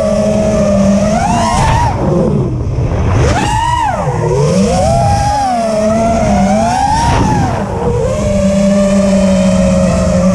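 Five-inch FPV freestyle quadcopter's brushless motors and three-blade props whining, recorded on the drone's own camera. The pitch rises and falls with throttle, with sharp climbs about two, three and a half and seven seconds in.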